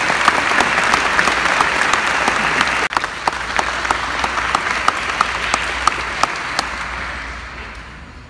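Audience applauding in a large hall, many hands clapping at once, dying away near the end.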